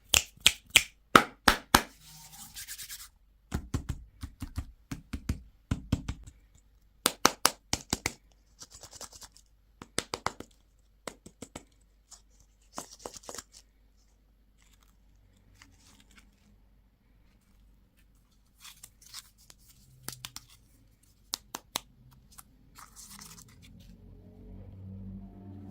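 Plastic candy and toy packaging being handled and opened: clusters of sharp clicks and taps with short scratchy rustles in between. A low rumble rises near the end.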